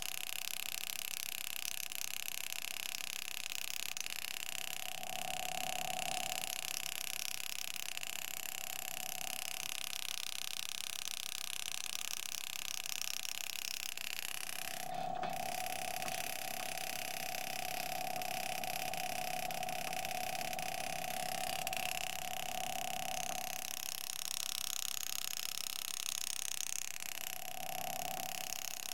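Power-assisted engraving handpiece humming in on-off spells as a graver cuts fine lines into a nickel: briefly about five seconds in, for about eight seconds from the middle, and briefly again near the end. A steady hiss runs underneath.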